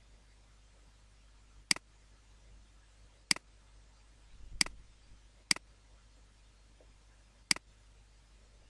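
Computer mouse clicking five times at irregular intervals.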